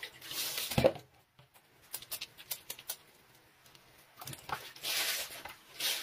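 Wet clothing scrubbed by hand with a bar of laundry soap in a concrete laundry sink: bursts of rubbing and wet sloshing, with a thump about a second in and scattered light clicks in between.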